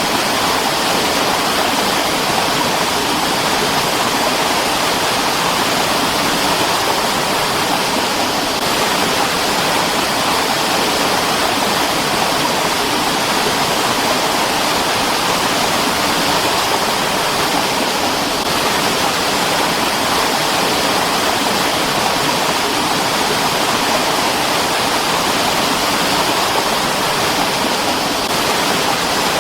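Mountain stream rushing over rocks, a steady loud splashing hiss without pause.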